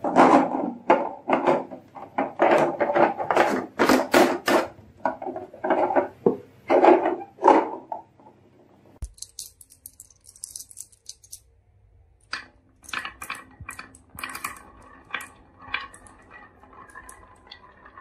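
Glass marbles clinking and clacking together in rapid, dense clicks for the first eight seconds or so. After a short quiet spell about two-thirds in, marbles roll and click along the grooves of a wooden wavy marble-run slope in a thinner run of clicks.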